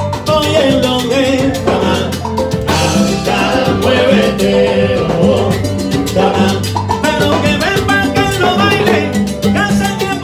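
A live Cuban salsa band playing: a male lead singer over congas and a steady dance rhythm.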